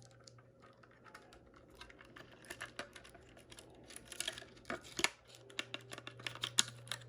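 Irregular small plastic clicks and taps from a FireX ADC smoke alarm's housing being handled and pressed shut, sparse at first and coming thicker and louder from about halfway through.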